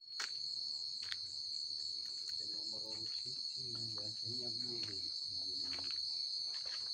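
Crickets trilling in a steady, unbroken high-pitched chorus. Faint low voices talk briefly in the middle.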